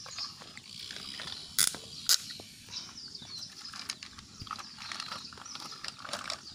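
Plastic toy tractor and toy front loader being handled and pushed on dirt: ratcheting clicks and rattles of the plastic parts, with two sharp clicks about one and a half to two seconds in.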